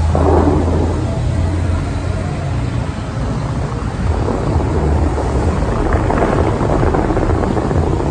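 Dubai Fountain's water jets spraying high and falling back onto the lake: a steady rushing, splashing noise with a deep rumble underneath, swelling a little in the second half.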